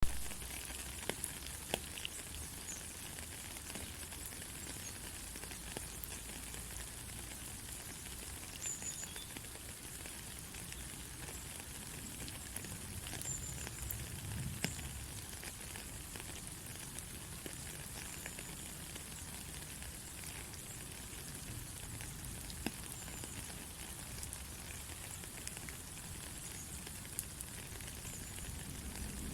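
Steady rain: an even hiss with scattered single drops ticking now and then.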